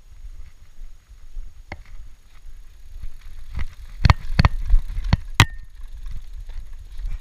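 Norco Shore 2 full-suspension downhill mountain bike rolling down a dirt trail, under a low rumble of wind and ground noise on the chest-mounted camera. About four seconds in comes a run of sharp clacks and knocks as the bike rattles over the rough ground, about four of them in a second and a half.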